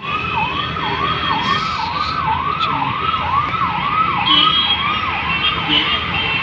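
An electronic siren sweeping up and down in a fast, even cycle about twice a second, over steady road-traffic noise.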